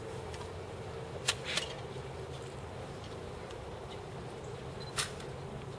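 Sharp clicks from a ceremonial rifle guard's drill movements as he handles his rifle: two close together about a second in and one more near the end, over a steady low outdoor hum.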